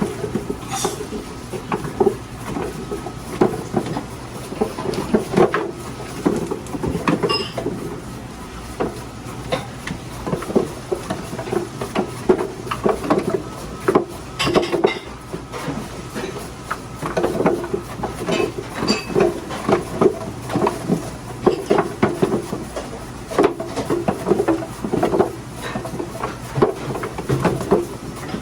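Radish-slicing food machine running: a steady motor hum under a continuous, irregular clatter of knocks as the radish is cut into thin slices.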